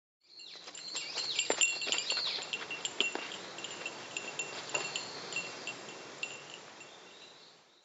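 Chimes tinkling: light clicks and high ringing tones that recur at the same few pitches, fading in just after the start and fading out near the end.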